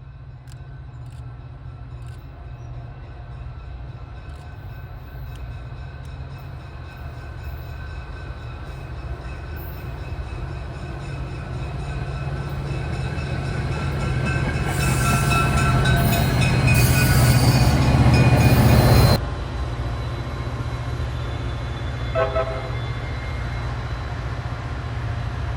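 Ex-Amtrak EMD F40PH diesel locomotive hauling a commuter train, growing steadily louder as it approaches, with its horn sounding. The sound drops off suddenly about three-quarters of the way through, leaving a steady low rumble.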